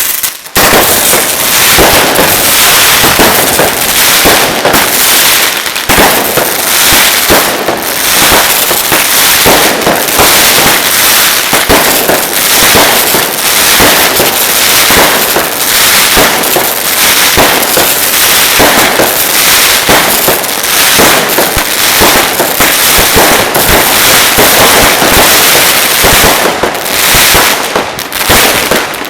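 Ground fireworks display: a dense, unbroken barrage of firecracker bangs and crackle, thinning slightly near the end.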